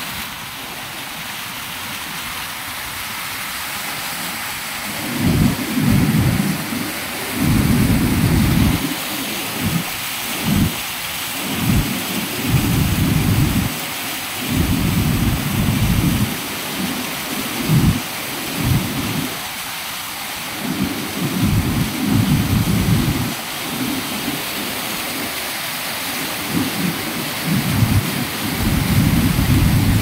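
Fast-flowing water rushing: a steady hiss, with low rumbling surges about a second long that come and go irregularly from about five seconds in.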